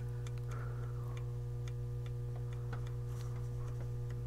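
A removed Pioneer SX-980 volume potentiometer being turned by hand up from fully down, its shaft giving irregular small clicks, a few a second. A steady electrical hum runs underneath.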